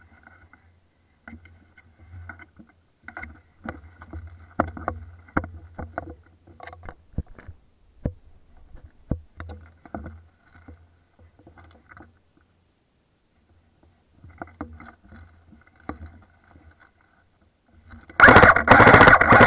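Footsteps and rustling through dry forest undergrowth, with several sharp twig snaps, picked up by a rifle-mounted camera. Near the end comes a loud, brief scraping rustle as leaves and branches brush close against the camera.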